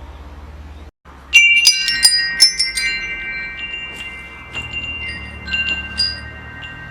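Metal wind chimes: a sudden flurry of tubes clashing about a second in, leaving several high, clear tones ringing on. A few lighter strikes follow near the end.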